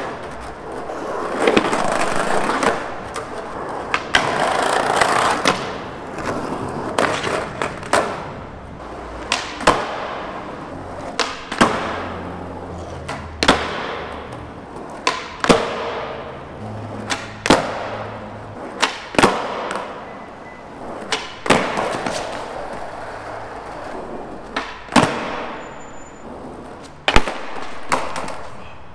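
Skateboard in an echoing concrete parking garage: a rough rolling noise from the wheels and trucks for the first five seconds or so, then a series of sharp cracks, roughly one to two seconds apart, as the tail snaps on the ground and the board lands back on its wheels.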